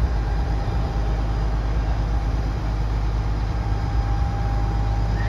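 The heavy engine of a 60-ton barge-mounted crane running with a steady low drone while the crane holds a boat of some 20,000 lb aloft in slings.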